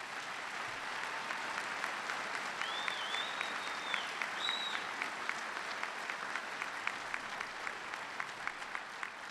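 A large audience applauding, a dense steady clapping that fades slightly near the end. About three seconds in, someone in the crowd gives a high whistle lasting about two seconds.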